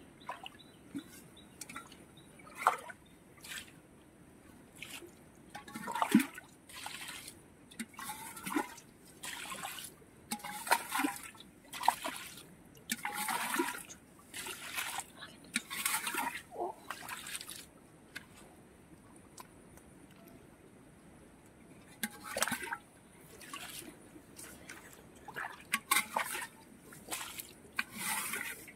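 Muddy water being scooped out of a small pit with a metal bowl and tossed aside, a run of short splashes about every second or so, pausing for a few seconds past the middle before starting again. The pit is being bailed dry by hand.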